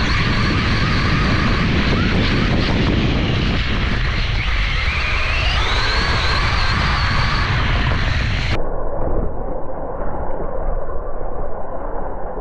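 Electric motor and drivetrain of a LOSI Promoto-MX RC motorcycle running under a heavy rumble heard from the onboard camera, its whine rising in pitch as the bike speeds up. About two-thirds of the way in the sound cuts abruptly to a duller, muffled version of the same running noise.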